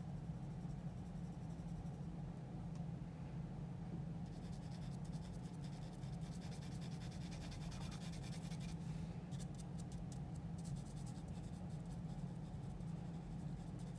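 Graphite pencil scratching on drawing paper in many short, quick shading strokes, denser from about four seconds in, over a steady low hum.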